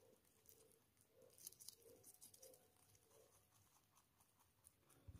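Faint crunching and small clicks of a rabbit chewing green peas taken from a hand.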